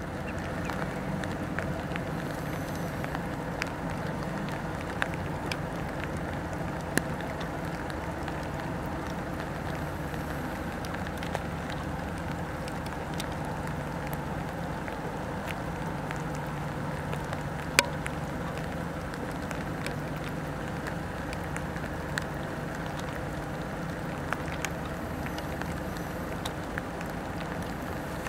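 Rain falling, with scattered sharp raindrop ticks close by, over a low, steady mechanical hum.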